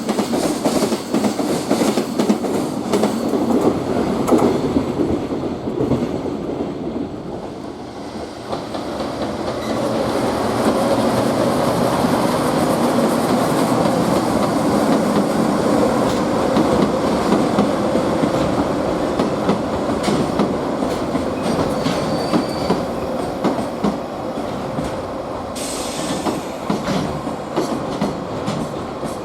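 Freight train wagons rolling past, wheels clattering over the rail joints with some wheel squeal. The sound dips briefly about a third of the way in, then another freight train runs steadily into the station.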